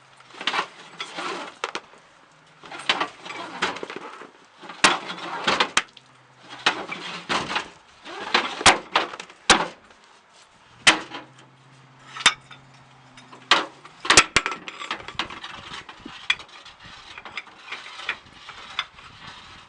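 A firefighter handling a large diameter supply hose and its couplings: irregular scraping and rustling, with sharp metallic clanks and knocks, and footsteps. A faint low hum runs underneath for stretches.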